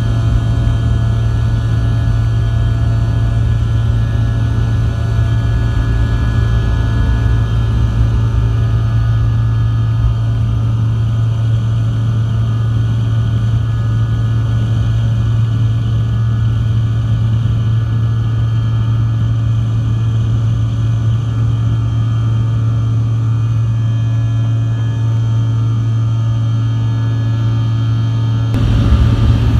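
Steady engine drone with a strong low hum and several constant tones layered over it, changing abruptly near the end.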